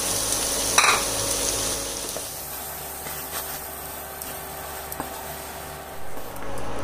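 Wooden spatula stirring coarse samba wheat rava into sautéed vegetables in an aluminium pressure pan, over a sizzle of hot oil. The sizzle drops off about two seconds in, with a few light ticks of the spatula against the pan.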